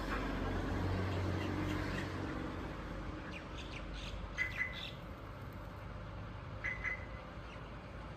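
Wild birds calling: two quick double chirps, about four and a half and nearly seven seconds in, over a low rumble that fades after the first few seconds.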